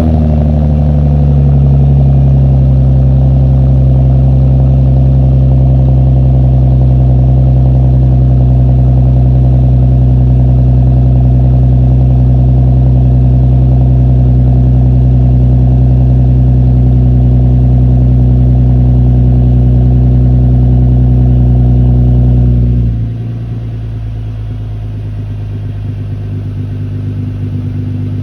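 Lexus IS engine started after a spark-plug tune-up, running at a steady high idle, then settling to a quieter, lower idle about 23 seconds in. The forgotten hose is now reconnected.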